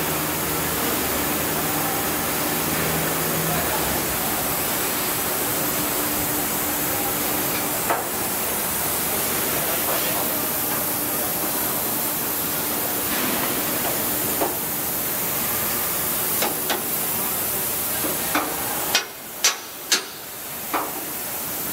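Steady hiss throughout. Near the end, a hammer strikes the steel frame of a combine harvester's chopper unit: a few lighter knocks, then four sharp metal blows in about two seconds, consistent with a pin being driven out during dismantling.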